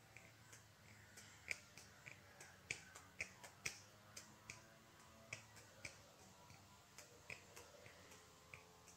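Scissors cutting a thin brass strip: a run of short, sharp snips, roughly two a second and irregularly spaced, as the blades bite through the sheet metal along a marked line.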